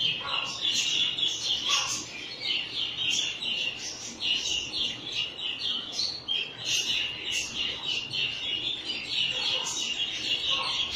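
Small cage birds chirping in a dense, continuous chatter, with a few brief lower calls near the start and near the end.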